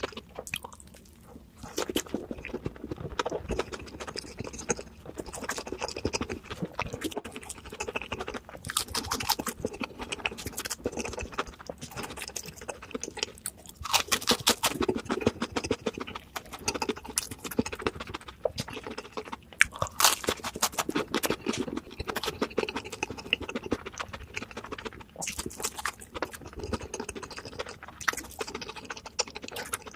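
A person biting and chewing crispy fried food, with crackling crunches that come in louder clusters several times, between stretches of steadier chewing.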